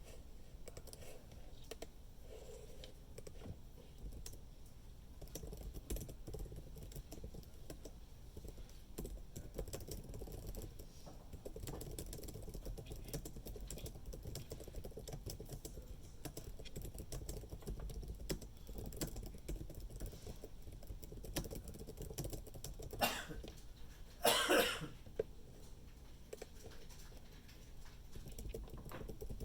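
Computer keyboard typing, light clicking throughout. About three-quarters of the way through, a person coughs: a short sharp burst, then a longer, louder one.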